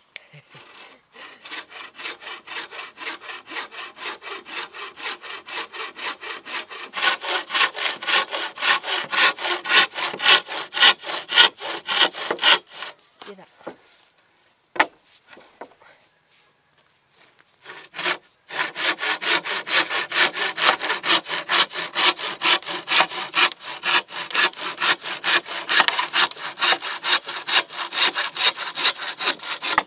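Frame saw cutting through a green bamboo pole in rapid, even back-and-forth strokes. The sawing stops for a few seconds about halfway, with a single sharp knock in the pause, then starts again.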